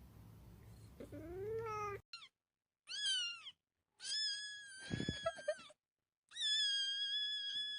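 A cat meowing about five times in a row: a fainter rising meow, then a short one, then three clearer meows, the last two long and high-pitched. Brief dead silences fall between them.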